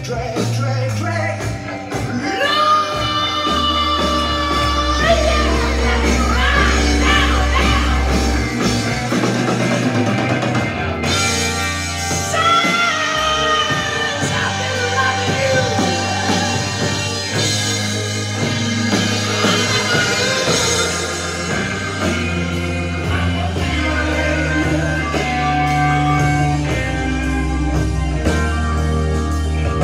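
A song with singing and a heavy bass line, played from a vinyl record on a turntable through an Akai AM-U3 amplifier and Pioneer CS-757 floor speakers.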